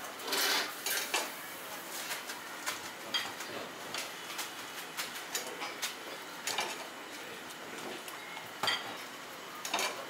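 Kitchen clatter: ceramic bowls, chopsticks and utensils clinking and knocking against each other and a stainless steel counter, a scattered series of short sharp clicks over a steady background hiss.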